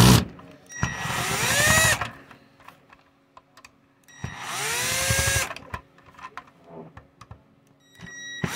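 Power drill with a screwdriver bit backing out the tight bottom-plate screws of an Intel NUC mini PC. It runs twice for about a second each, about a second in and again about four seconds in, its whine rising in pitch as it spins up. A sharp knock comes at the very start, with light clicks between the runs.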